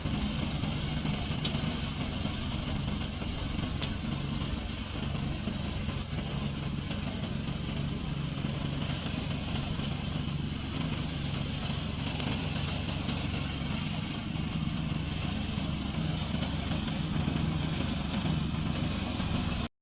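Remote-controlled lawn mower's engine running steadily with its cutting noise, then stopping abruptly near the end.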